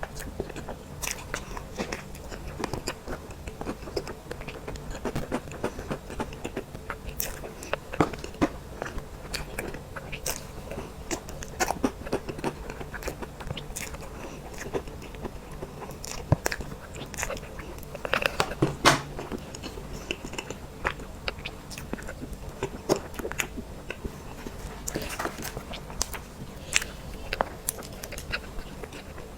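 Close-miked eating of cake: irregular wet chewing and biting, with many small crisp clicks and mouth noises, busiest about two-thirds of the way through.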